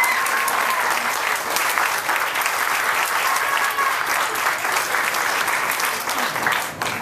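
A crowd applauding, many hands clapping steadily, which stops just before the end.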